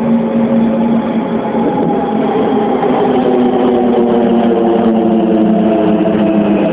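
An engine running steadily, its pitch easing slowly down.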